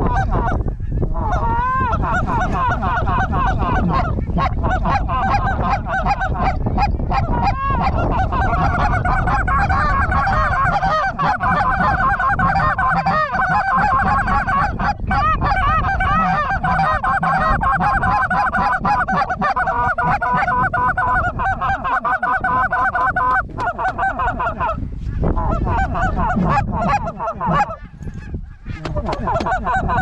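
A flock of cackling geese calling together: many overlapping honks and yelps in a dense, continuous chorus. The chorus thins out for a few seconds near the end, then picks up again.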